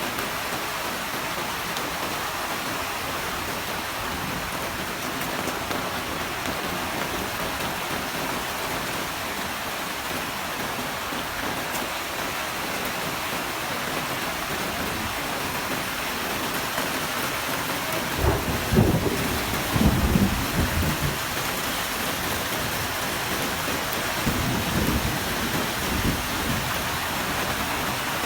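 Heavy rain falling steadily, with a rumble of thunder about two-thirds of the way through and a fainter rumble a few seconds later.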